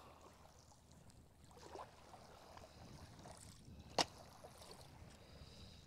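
Quiet handling of fishing bait and tackle, faint rustles with one sharp click about four seconds in, over a low steady rush of flowing river water.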